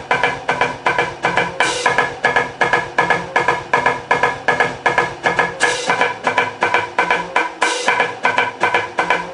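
Marching percussion drumline playing a single-hand diddle exercise: a fast, steady rhythm of drum strokes over lower bass-drum notes, with cymbal crashes at about two seconds in, near six seconds and near eight seconds.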